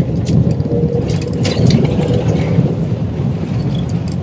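Jet airliner cabin noise: a steady, loud low rumble of engines and airflow heard from a passenger seat, with a few faint clicks on top.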